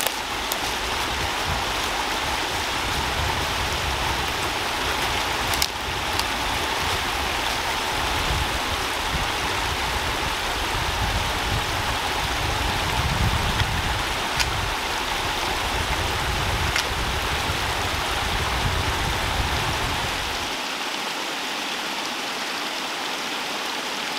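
Steady outdoor hiss of wind in the forest, with wind buffeting the microphone as an uneven low rumble that drops away about 20 seconds in. A few faint clicks.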